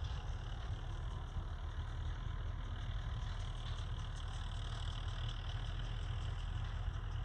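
Belarus 825 tractor's diesel engine running steadily at an even speed, mostly a low hum, with faint clicking above it.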